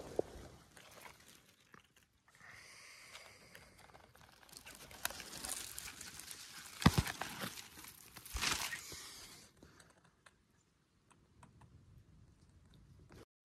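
Dry grass and dead leaves rustling and crackling as a hand pushes and rummages through them, loudest in the middle, then fading to a few faint ticks near the end.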